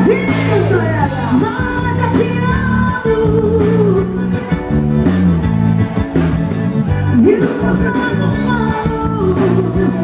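Live forró band playing: accordion melody over bass and rhythm, with a woman singing into a microphone.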